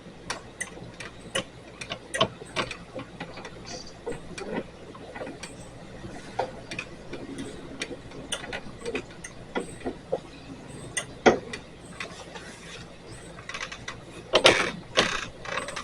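Irregular metal clicks and ticks, a few a second, from a fence turnbuckle and its rod hardware being turned to tighten. The turnbuckle is taking up tension to pull the sagging fence up. A louder cluster of clicks and clatter comes near the end.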